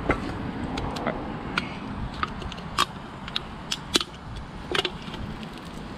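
Aluminium soda cans being handled and tipped out, giving a scatter of short, irregular clicks and taps over a low wind rumble on the microphone.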